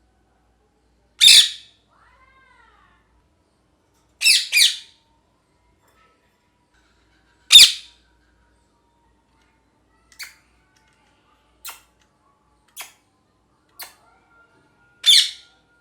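Pet ringneck parakeet squawking in loud, harsh calls: one about a second in, a quick double a few seconds later, another after that and one near the end, with four short, quieter chirps in between.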